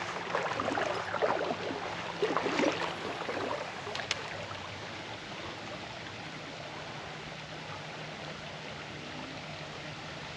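Shallow stream water flowing steadily, with irregular splashing and rustling for the first few seconds and a single sharp click about four seconds in.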